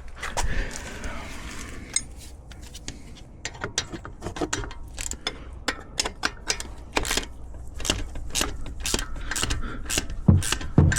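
Ratchet wrench clicking in short runs as a brake caliper bolt is turned, with a few heavier metal knocks near the end.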